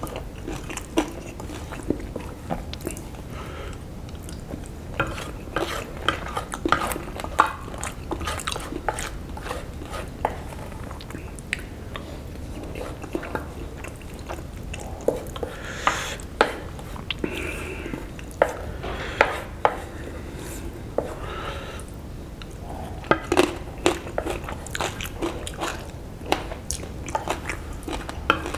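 Chewing and mouth smacks of noodles and fried tofu, with a wooden spoon scraping and tapping against a plate. Many short, irregular clicks throughout.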